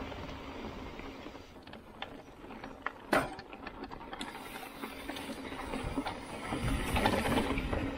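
Mountain bike rattling and clicking as it rides down a singletrack trail, with a sharp knock about three seconds in. Rumble from the tyres and ground grows louder near the end.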